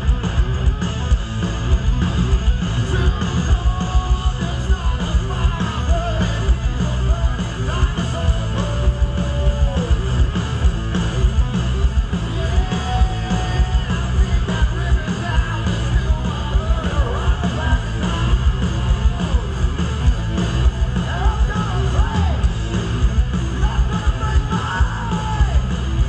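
Live heavy rock band playing loud through the festival sound system, with electric guitars, pounding drums and yelled vocals, heard from within the crowd.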